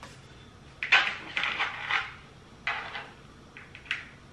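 Hands handling things at a kitchen counter: three short bursts of rustling and crinkling, the longest and loudest about a second in.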